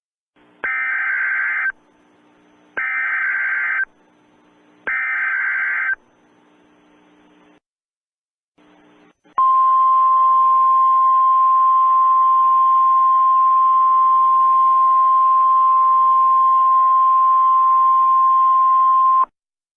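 Emergency Alert System SAME header: three warbling data bursts of about a second each, a second apart, with faint hiss between. Then a single steady, loud alert tone of about ten seconds, the 1050 Hz NOAA Weather Radio attention tone, which cuts off sharply.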